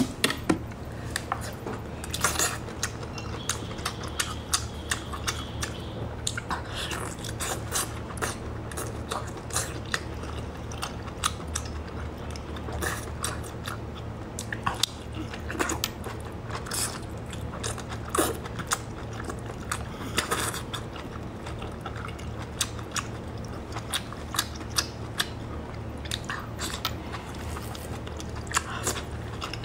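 Biting and chewing of braised squid tentacles, many sharp clicks and smacks of the mouth close to the microphone, over a steady low hum.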